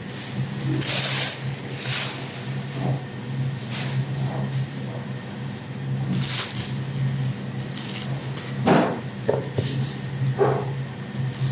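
A plastic bag rustling and crinkling in short bursts as vegetables are handled, with a couple of louder knocks near the end, over a steady low hum.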